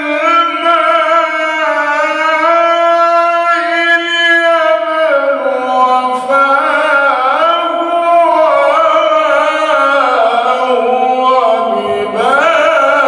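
A man reciting the Quran in the slow, melodic mujawwad style, drawing single syllables out into long held notes. About halfway the held pitch begins to waver in ornaments, and after a short break near the end a new phrase starts and rises.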